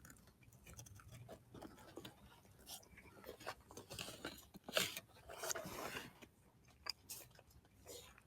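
A person eating close to the microphone: faint chewing and crunching with small mouth clicks, and one sharper click about five seconds in.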